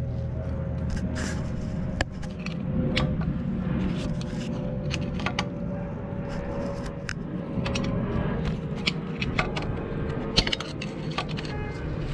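Flathead screwdriver prying at a vacuum hose on the engine's intake, making irregular sharp clicks and scrapes of steel against metal and rubber fittings, over a steady low hum.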